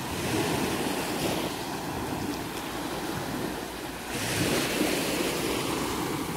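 Small sea waves washing up onto a sand and pebble shore, with a fresh wave surging in about four seconds in.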